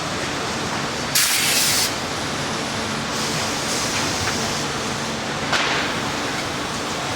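Hay and straw baler running steadily in production, with a loud hiss about a second in lasting under a second and weaker hisses a little later.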